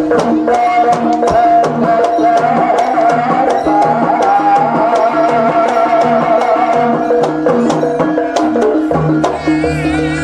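Javanese jaranan music: an ensemble of drums and pitched gong-chime percussion playing a steady repeating pattern under a wavering melody line, with sharp drum strokes throughout.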